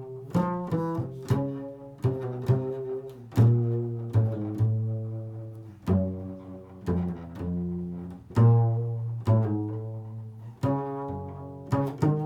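Improvised solo instrumental music: low pitched notes sounded one after another, each starting sharply and ringing away over about a second, some overlapping.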